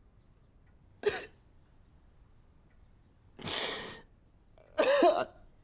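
A person's coughs and hard breaths: a short sharp burst about a second in, a longer breathy one about three and a half seconds in, and a voiced one near the end.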